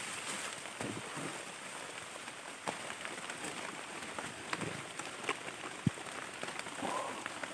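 Light drizzle falling on leaves and swamp vegetation: a steady soft hiss dotted with scattered drop ticks. Soft rustling of wet undergrowth as someone pushes through it.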